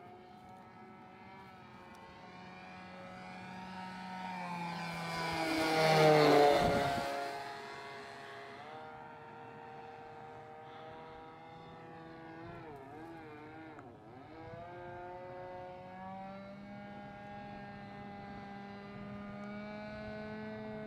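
Nitro glow engine of a Hangar 9 Twist 40 RC aerobatic plane running in flight. It grows louder into a close pass about six seconds in, its pitch dropping as it goes by, then wavers in pitch around 13 seconds as the plane manoeuvres.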